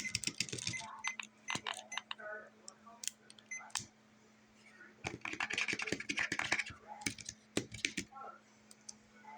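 Tapping and clicking on a fidget board's buttons and switches: quick flurries of sharp clicks, like typing, with single clicks and short pauses between.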